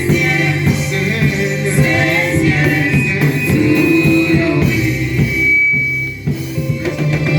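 Live church gospel music: singing over an amplified band, with the voices dropping out about five seconds in while the instruments carry on.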